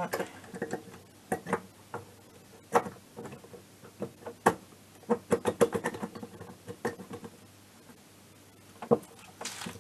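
Light metal clicks and knocks, irregular and a few at a time, as an aluminium cylinder is worked down over the piston and rings of a scooter's small two-stroke engine. A little force is needed because the rings have to be squeezed into the bore.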